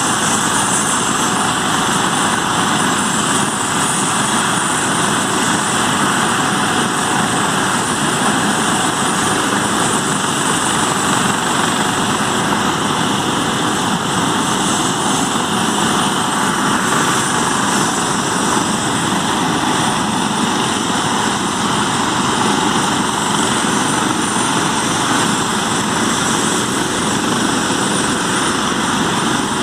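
Military turbine helicopters running on the ground: a steady loud engine and rotor noise with a high whine on top.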